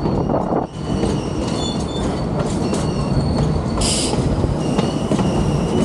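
Narrow-gauge passenger train running on the track with a steady low rumble, its steel wheels squealing in thin high tones that come and go. A short burst of hiss comes about four seconds in.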